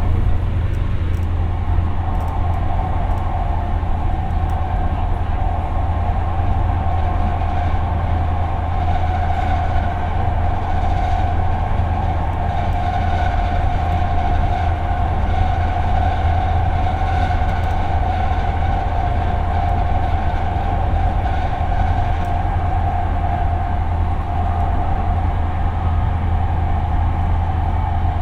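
Siemens P2000 light-rail car running at steady speed, heard from inside the car: a steady low rumble with a constant whine held throughout.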